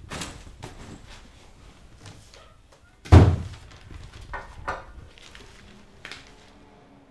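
A door slammed shut once, hard, about three seconds in, with a few lighter knocks before and after it.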